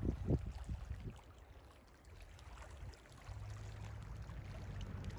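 Low rumble of a moving car heard from inside the cabin, with a steady low hum that comes in about three seconds in.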